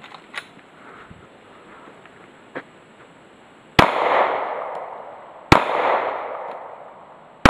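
Glock 19 9 mm pistol firing three shots about two seconds apart. Each is a sharp crack followed by a long decaying echo.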